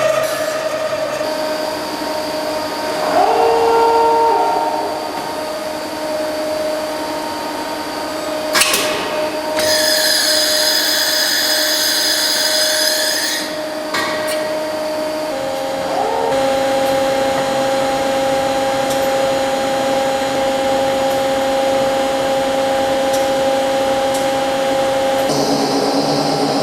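Hankook CNC machining center running, its spindle and drives giving a steady whine that steps to new pitches a few times. A loud hiss cuts in for about four seconds near the middle, with a sharp click before and after it.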